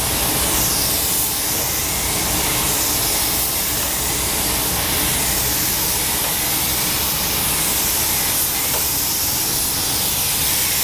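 Gravity-feed compressed-air spray gun hissing steadily as it sprays a coat of paint onto a car's body panels.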